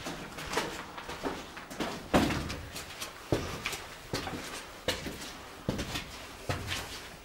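Footsteps in hiking shoes on a tunnel floor and down concrete steps, a step about every half second to second, with one heavier step about two seconds in.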